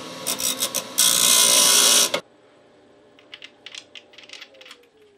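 Bench grinder running, with a small steel tab washer pressed against the wheel in a few short touches and then ground steadily for about a second to take an edge off so it will fit. The grinding cuts off suddenly about two seconds in, followed by faint small metal clicks as the washer is fitted onto the hub motor's axle.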